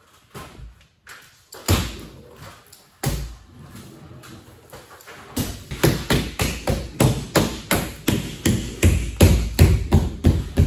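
Thumps on a Filon fiberglass sheet laid over a plywood camper roof as it is pressed down into contact cement with hands and a hand roller. A few separate thumps come first, then from about halfway a steady run of about three thumps a second.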